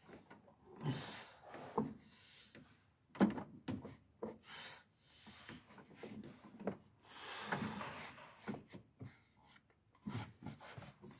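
Irregular knocks, clicks and scraping of hands, tools and metal and plastic parts as a car's clutch master cylinder is worked into place, the sharpest a single knock about three seconds in.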